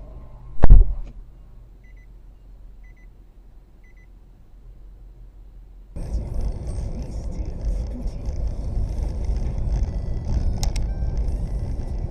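A single loud bang about half a second in, then three faint short beeps about a second apart. About halfway through, a steady low rumble of a car driving on the road, heard from inside the cabin.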